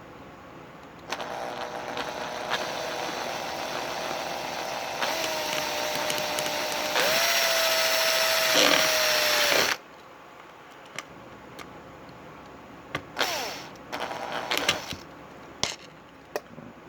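Handheld power tool motor running for about nine seconds, its speed stepping up partway through and dipping briefly under load before it stops, followed by a few knocks and clicks of handling.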